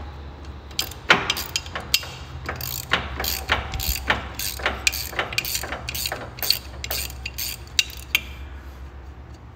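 3/4-inch ratcheting wrench clicking as it backs off a hub nut, about two or three pawl clicks a second with each back-swing. The clicking stops near the end.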